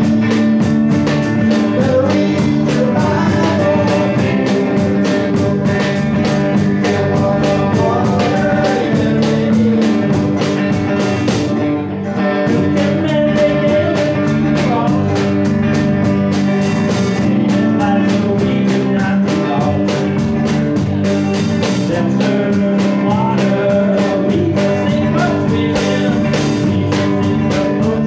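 Live band playing a rock-style gospel song: electric and acoustic guitars, electric bass and drum kit with a steady beat, briefly dropping out about twelve seconds in.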